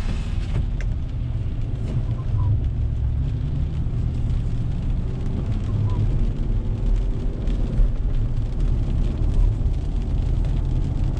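Steady low rumble of a car's engine and tyres on wet pavement, heard inside the cabin while driving, with the windshield wipers sweeping intermittently.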